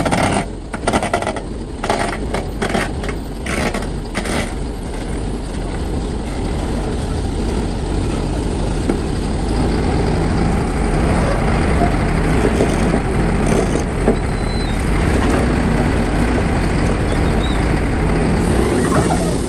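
Heavy earthmoving machinery running steadily under diesel power, with a run of sharp clattering knocks in the first few seconds.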